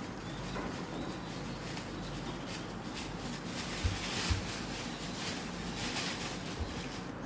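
Steady low hum and hiss, with a few soft low thumps as fishing floats and feeder rigs are handled: two close together about four seconds in and one more near the end.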